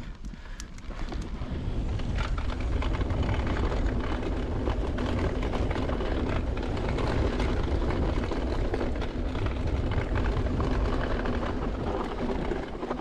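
A mountain bike descending a dirt singletrack at speed: wind noise on the microphone and tyre noise on the trail, with scattered small clicks and rattles. The noise builds over the first two seconds as the bike picks up speed, then holds steady.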